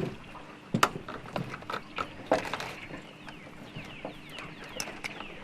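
A few sharp knocks and thumps on a fishing boat while a freshly landed catfish is handled, then a string of short falling chirps in the second half.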